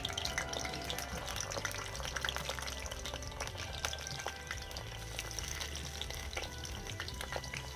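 Coconut-filled pitha dumplings deep-frying in hot oil in an iron karahi, with a dense, steady crackle and sizzle of bubbling oil. Background music plays underneath.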